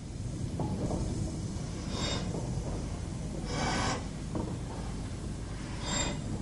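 BR Standard Class 4 2-6-4 tank steam locomotive No. 80135 working slowly: widely spaced exhaust chuffs, about one every one and a half seconds, over a steady low rumble.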